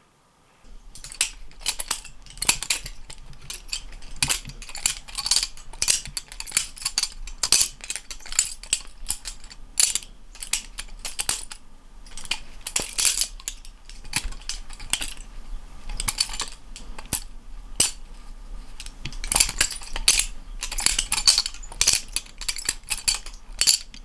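GoFlipping budget balisong (butterfly knife) with stainless steel handles being flipped: a long run of irregular metallic clicks and clacks as the handles swing and knock together, with a few short lulls.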